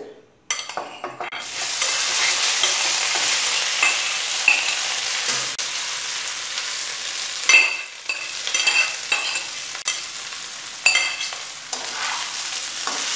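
Partly boiled rice frying in hot ghee in a wok, sizzling steadily from about a second and a half in. In the second half a metal spatula scrapes and clinks against the pan several times as the rice is stirred.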